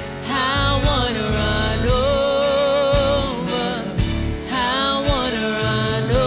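Gospel worship music: a sung melody over a band with a steady beat.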